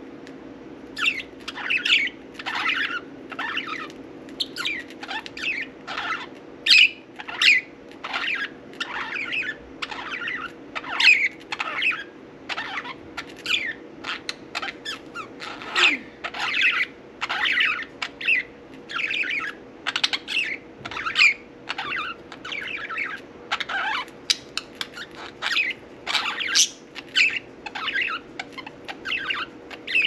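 Budgerigars chattering, a quick, near-continuous run of short chirps and squawks starting about a second in, over a steady hum.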